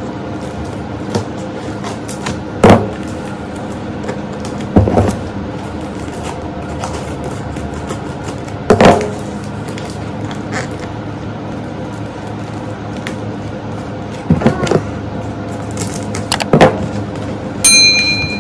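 Scissors cutting and tearing through the packing tape of a cardboard parcel: a handful of short, sharp cuts and rips spaced a few seconds apart over a steady background. Near the end a brief electronic chime, a subscribe-button sound effect, rings out.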